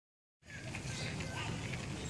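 Outdoor background noise, starting about half a second in: a steady low rumble with faint, short high chirps over it.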